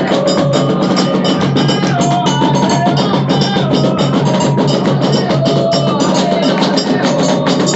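Music with fast, dense drumming under a melody line that moves between held notes.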